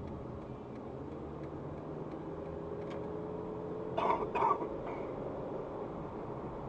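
Steady car engine and road noise heard from inside the cabin while driving. About four seconds in, two short coughs.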